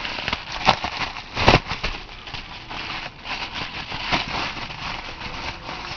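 Packaging being opened by hand: continuous crinkling and rustling with many small clicks and a couple of sharper snaps in the first couple of seconds.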